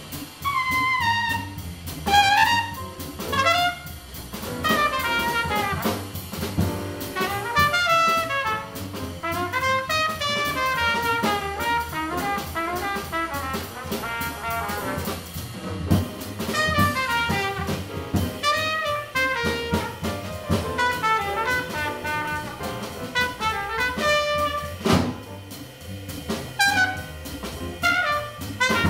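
Small jazz group playing live: trumpet carries the melody over piano, upright bass and a drum kit keeping time on the cymbals, with a sharp drum accent near the end.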